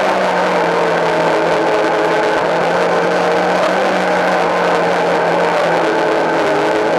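Mitsubishi Lancer Evolution IX rally car's turbocharged four-cylinder engine running hard at a near-steady pitch, heard from inside the cabin.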